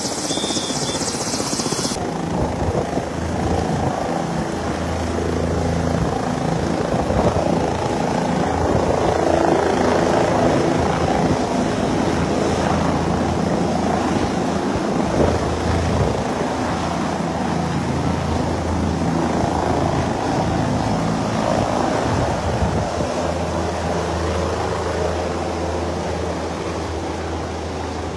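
Helicopter's turbine engine and rotor running close by as it lifts off and climbs away, a steady low drone with rushing noise. There is an abrupt change in sound about two seconds in, and the sound eases slightly near the end.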